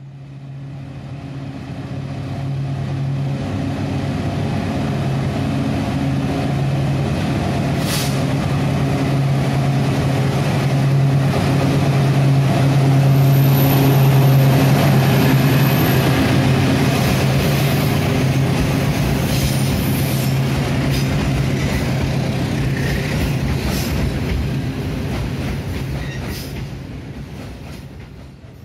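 A CC 206 diesel-electric locomotive passes close, hauling a freight train. Its engine's steady drone swells to its loudest as the locomotive goes by about halfway through. The wagons' wheel noise follows and fades near the end.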